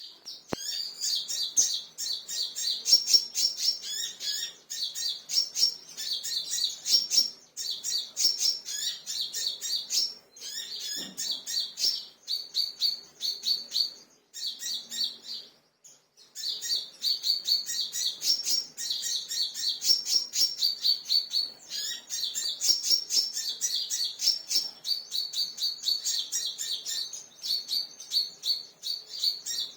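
Kolibri raja sunbird singing agitatedly: rapid, high-pitched chirping trills, nearly continuous, with a brief pause about halfway through.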